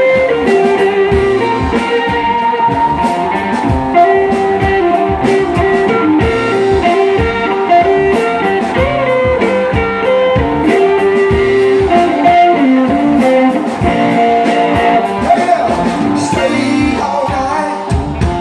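Live band playing amplified electric guitars, bass guitar and a drum kit, the guitars carrying a melodic line over a steady drum beat.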